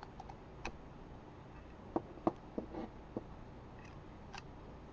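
Scattered light clicks and ticks as a blade cuts the rubber tip off the end of a bobby pin. There are about seven small snaps, the loudest about two seconds in.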